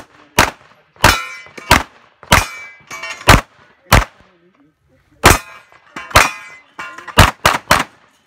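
Handgun shots fired in a string at steel targets, about eleven in all, several followed by the ringing clang of the hit steel; a pause of about a second midway, then three quick shots near the end.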